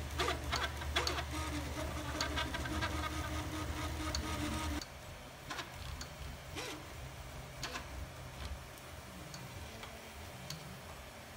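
UP 3D printer printing: its stepper motors whir and buzz in shifting tones as the print head moves, with scattered ticks over a steady low hum. About five seconds in the sound drops quieter, leaving the changing motor whine and occasional ticks.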